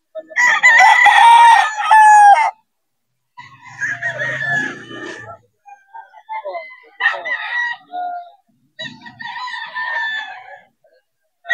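Gamefowl roosters crowing. One loud crow of about two seconds comes near the start, its last note falling. Several fainter crows follow through the rest, with short quiet gaps between them.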